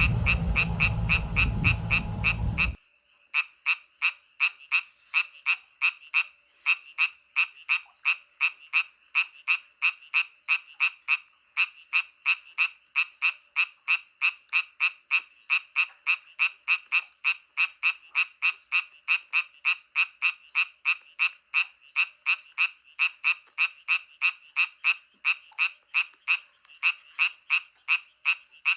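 A frog calling in a steady, fast series of short, high croaks, about two to three a second. For the first few seconds a loud rushing noise sounds along with it, then cuts off suddenly.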